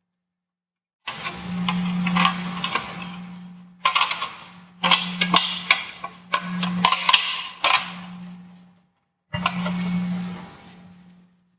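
Metal parts clicking, scraping and clinking as a sheet-metal side cover is fitted onto a Toyota Prius NiMH hybrid battery pack, over a steady low hum. The sound stops abruptly about nine seconds in and returns briefly near the end.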